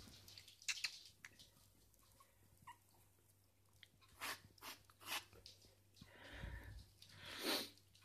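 Jack Russell terrier puppy licking and chewing at cream from a can held to its mouth: scattered short, wet smacking sounds, with a longer, louder one near the end.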